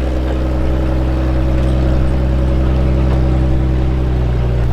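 Supercharged engine of a 1992 Jeep Cherokee running steadily at an even pitch.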